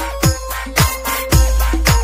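Background music with a steady beat, a drum stroke about twice a second.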